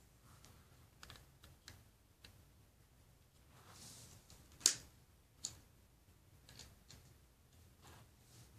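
LEGO plastic pieces being handled and pressed together: scattered faint clicks and taps, with one sharper click about halfway through, just after a brief rustle.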